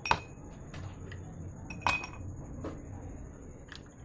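Ice cubes dropped by hand into fluted glass tumblers, clinking against the glass. A sharp clink right at the start is the loudest, another comes about two seconds in, and a few lighter taps follow.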